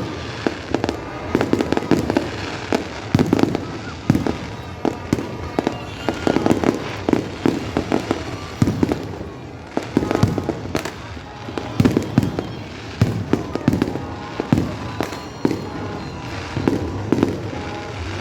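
Fireworks display: a dense, continuous barrage of bursting aerial shells, several bangs a second with no let-up.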